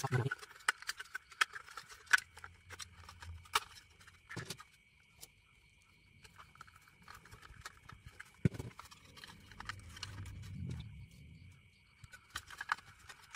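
Plastic casing of a Xiaomi Mi Repeater Pro Wi-Fi repeater being handled and fitted back together, giving scattered light clicks and knocks of plastic parts, with a soft rubbing, scraping stretch around ten seconds in.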